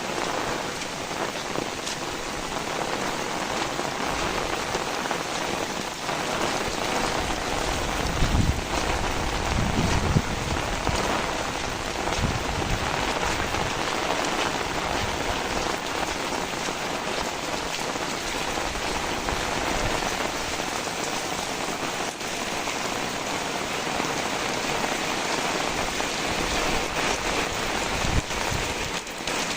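Heavy rain falling steadily, with a few brief low gusts of wind about eight to twelve seconds in and again near the end.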